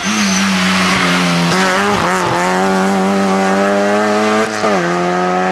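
Rally car engine held at high revs as the car passes close and pulls away on a gravel stage, with a hiss of tyres on loose gravel. About four and a half seconds in the engine note dips briefly, then climbs back, as at a gear change or lift.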